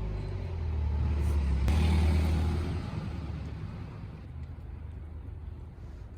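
A motor vehicle passes by, its low rumble and tyre hiss building to a peak about two seconds in and then fading away.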